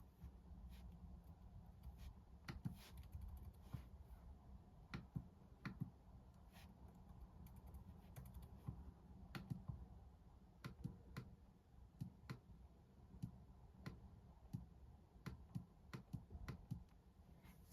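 Faint, irregular light clicks and taps of note taking, over a low steady background rumble.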